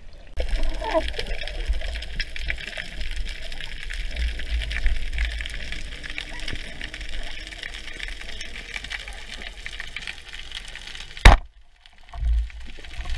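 Underwater sea ambience: a steady hiss full of fine crackling clicks over a low rumble. About eleven seconds in there is one sharp click, followed by a second of near silence.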